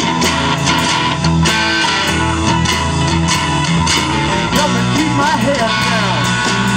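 Live blues band playing a passage between sung lines, with electric guitars, keyboard and drums.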